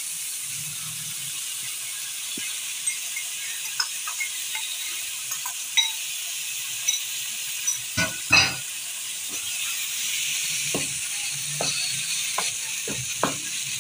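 Minced meat and onions sizzling in oil in a non-stick frying pan as tomato paste is stirred in, with a wooden spoon scraping and knocking against the pan. Two louder knocks come about eight seconds in.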